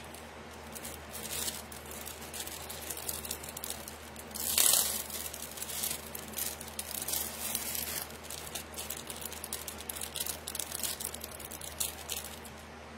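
Plastic jewelry bag crinkling and rustling in irregular bursts as a necklace is handled and taken out of it, loudest about four and a half seconds in.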